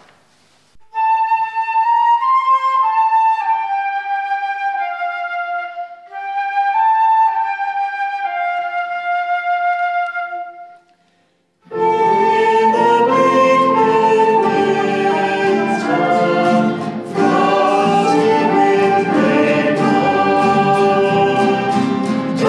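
A slow carol melody played solo on a flute for about ten seconds. After a short pause, a church folk group comes in together with acoustic guitars, trumpet and flute, playing the carol's instrumental introduction.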